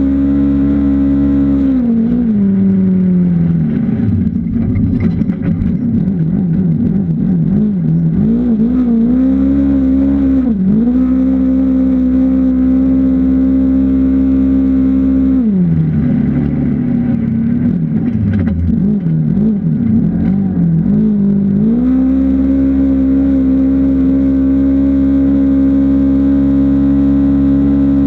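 Off-road vehicle engine running hard at steady high revs. Twice the revs drop and waver unevenly for about five seconds before climbing back to a steady pitch, and a short dip comes about ten seconds in.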